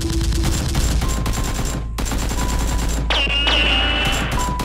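Continuous rapid machine-gun fire sound effect laid over a toy blaster firing, with music underneath. A brief swooping tone comes in about three seconds in.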